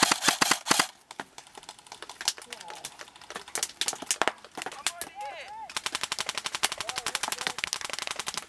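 Airsoft electric rifles firing: a short rapid burst at the start, scattered single shots, then a long rapid full-auto burst from about six seconds in.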